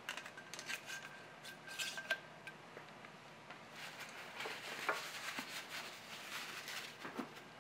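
Faint light clicks and clinks of small metal parts and tools being handled. From about four seconds in, the soft rustle of a blue shop towel being rubbed between the hands.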